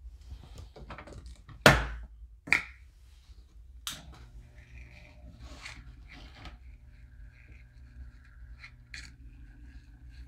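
Plastic measuring cup and gear handled on a wooden bench: three sharp knocks in the first four seconds, with some rustling. From about six seconds in, a small electric motor hums steadily, with a couple of light clicks near the end.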